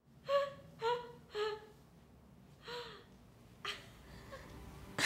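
Four short wailing notes, each a little lower than the last, the fourth longer and bending downward: a comic 'wah-wah-wah-wah' letdown.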